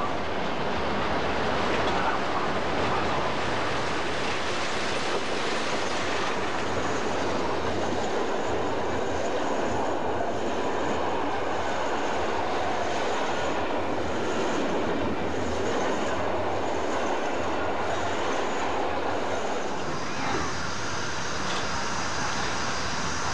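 Passenger train behind a DB class 23 steam locomotive passing close by: a steady rumble and clatter of the coaches' wheels on the rails.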